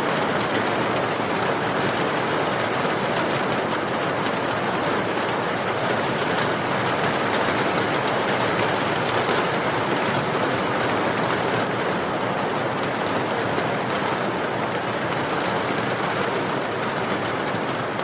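Steady heavy rain, with the faint crackle of a wood fire burning in a fireplace.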